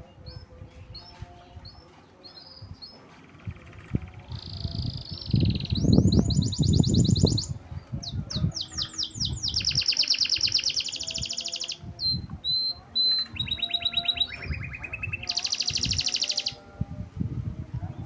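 Domestic canary singing long, rapid, high trills and rolls in several phrases, with short chirps before them. Low knocks and thumps come in the middle, about five to seven seconds in, and are the loudest thing there.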